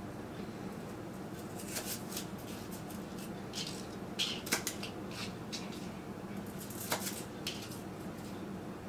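Kitchen knife cutting celery into strips on a cutting board: scattered, irregular cuts and light taps of the blade against the board. A faint steady hum runs underneath.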